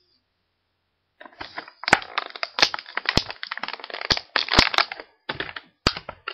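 Toy packaging being handled and opened, crackling and crinkling with several sharp cracks, starting about a second in.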